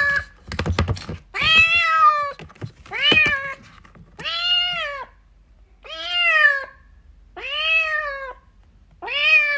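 Kitten meowing loudly and repeatedly, about six drawn-out meows each rising and falling in pitch, roughly one every second and a half. A short run of soft knocks comes about a second in, between the first calls.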